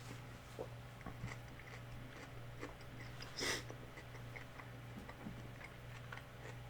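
Close-miked chewing of fried chicken flautas: faint wet mouth clicks, with one louder bite about three and a half seconds in, over a steady low hum.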